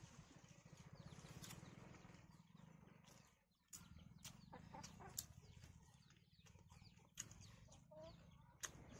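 Faint eating sounds: two people chewing with lip smacks and squelches while mixing rice with their fingers on plates. It comes as a scatter of soft, sharp clicks over a low steady hum.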